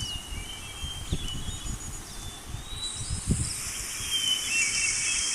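Bird chirps and short whistled calls, joined about three seconds in by a steady high hiss like an insect buzz, over scattered low thumps.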